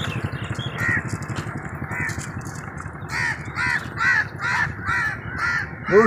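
A crow cawing: a couple of single caws, then a quick run of about seven caws, roughly two or three a second, from about halfway through, over a low steady rumble.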